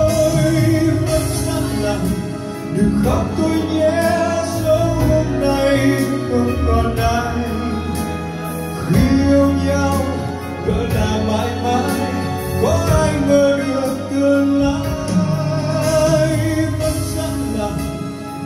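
Male singer singing live into a handheld microphone over instrumental backing, with long held notes that glide up into new phrases.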